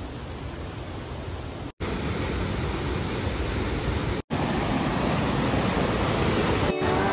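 Waterfall rushing as a steady noise of falling water, broken twice by a split-second silence and louder after the first break. Music comes in near the end.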